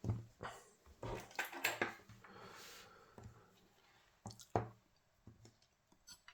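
Handling noise from the e-bike battery case and connector parts: a scatter of light knocks and clicks as the hard parts are moved and set down.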